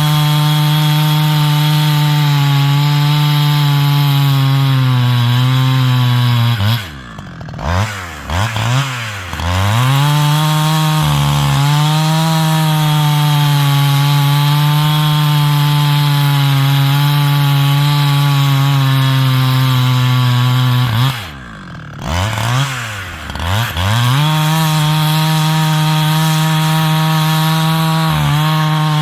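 A 70cc chainsaw with a 25-inch bar running at full throttle while bucking a stringybark log. Twice the revs drop off between cuts and are blipped back up before the saw goes back under full throttle.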